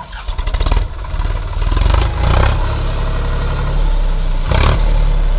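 Sonalika diesel tractor engine running hard under load as it tries to pull a loaded trolley out of deep sand where it is stuck, with louder surges about two seconds in and again near the end.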